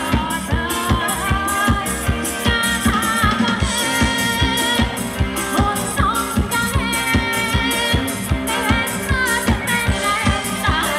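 Thai ramwong dance music from a live band through loudspeakers: a singer over a steady, even drum beat.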